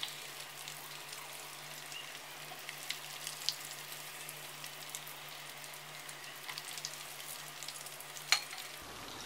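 Semolina-coated fish pieces deep-frying in hot oil in a steel pan: a steady sizzle with many small pops and crackles, and one sharp, louder click near the end.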